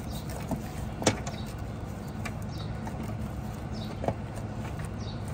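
A few light clicks and handling noises as the A/C line's retaining clip is pushed onto a threaded stud on the frame rail. The clearest snap comes about a second in. A steady low hum runs underneath.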